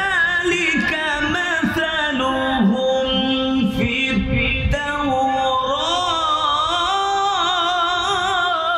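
A man reciting the Quran in a slow, melodic chant, drawing out long held notes that waver and ornament in pitch. One phrase ends about four and a half seconds in, and the next begins straight after.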